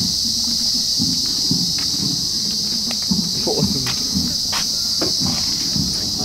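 Steady, high-pitched chorus of insects, unbroken throughout, with some low, irregular scuffs and a few small clicks beneath it.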